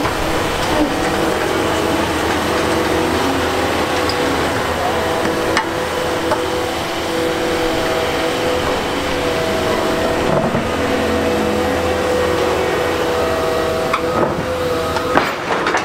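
Heavy earthmoving equipment running: engine noise with a steady whine at a few fixed pitches over it. A few sharp metallic knocks come through, one about six seconds in and several near the end.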